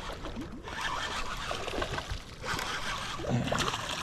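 Water splashing and trickling around a kayak, with small knocks and scrapes of handling in the boat.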